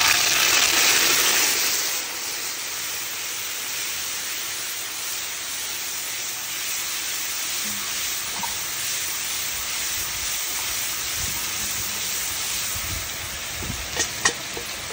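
Tomato paste hitting hot oil in a metal pot: a loud sizzle for the first couple of seconds that settles into a steady frying hiss. A few clinks of a spoon against the pot near the end.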